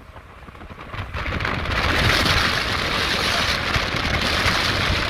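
Wind rushing over the microphone and road noise from a moving vehicle, heard from the open back of the car, swelling over the first two seconds and then holding steady with a low rumble under a hiss.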